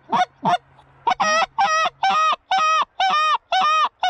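A hunter's goose call blown in a steady rhythm: quick short clucks about three a second at first, then, after a brief pause, longer drawn-out honks about two a second.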